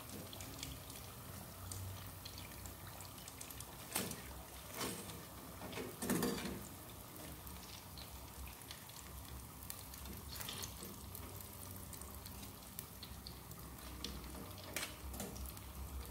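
Hot frying oil dripping and trickling from a perforated skimmer full of batter-fried chicken back into the pot, with the oil crackling faintly. There are two short, louder noises about four and six seconds in.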